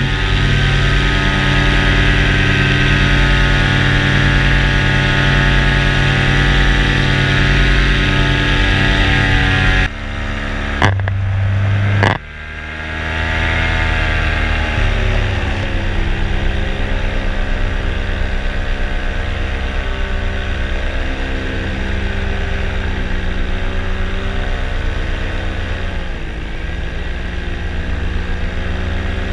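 Paramotor engine running steadily. Its sound breaks off abruptly about ten seconds in, then climbs in pitch as it comes back, with a brief dip in pitch near the end.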